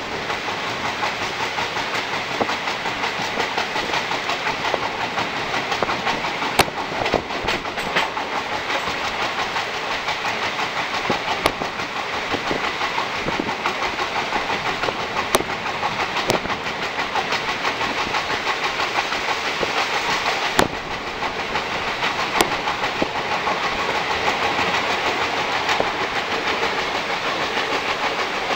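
Steady running noise of a moving train with wheel clatter, broken by a few sharp clicks.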